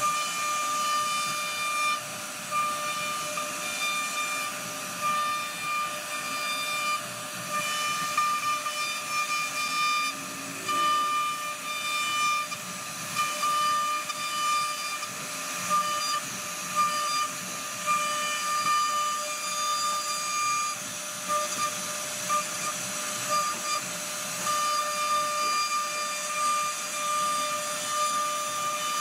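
CNC router spindle carving a relief pattern into a wooden panel: a steady high-pitched whine over the hiss of the cutter chipping away wood, the loudness wavering as the bit moves through the cut.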